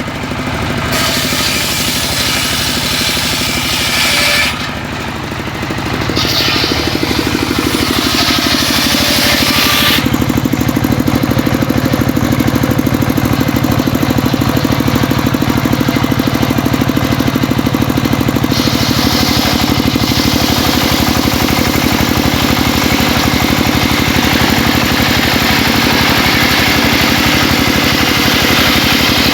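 Engine of a homemade circular saw running steadily under load while the blade works through mahogany. The sound changes several times in the first ten seconds, then holds steady and loud.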